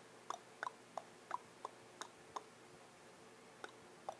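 African grey parrot making soft clicking sounds with its beak and tongue, about three short clicks a second, pausing for a little over a second before clicking again near the end.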